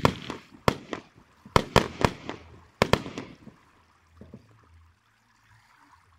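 Aerial firework shells bursting overhead: a rapid run of about nine sharp bangs over the first three seconds, then the display dies down to faint crackles.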